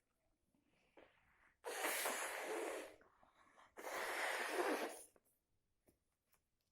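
A person with a cold blowing their nose hard into a tissue twice, each blow a long, even rush of air lasting about a second.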